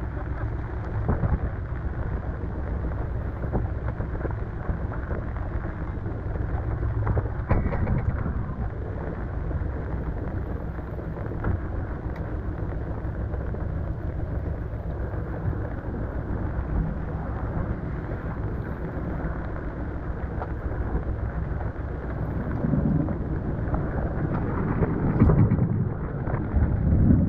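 Strong wind rumbling across the camera microphone on a sailboat in a storm, a steady low roar that swells louder a few times near the end.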